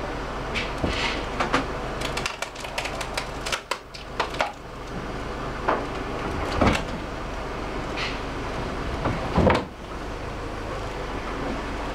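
Extended-boom forklift's engine running steadily while a strapped hot tub is lifted out of its deck opening, with scattered clicks and knocks, a quick run of them about two to four seconds in, and louder thumps at about seven and nine and a half seconds.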